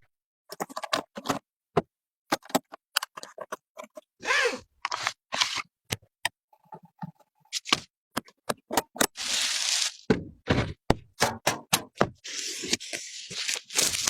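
Computer parts being handled and fitted together: a run of sharp clicks, knocks and taps, with a few longer scraping or rustling stretches about four seconds in, around nine to ten seconds, and again near the end.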